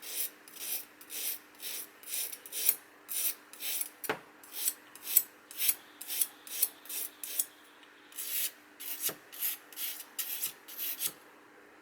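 Kitchen knife blade drawn in quick repeated strokes across the coarse side of a water-soaked whetstone, a wet scraping rasp about two strokes a second, grinding out burrs on the edge.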